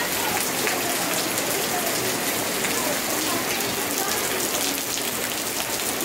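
Steady rain falling on wet paving stones and puddles: an even hiss dotted with many separate drop ticks.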